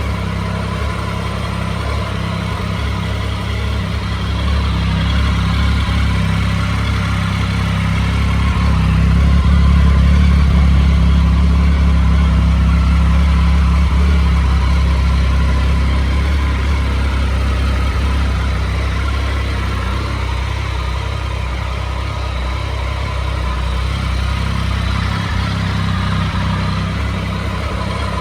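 2006 Triumph Speed Triple's 1050 cc three-cylinder engine idling steadily just after an oil change, a little louder for a few seconds in the middle. It is running smoothly, with nothing amiss to be heard.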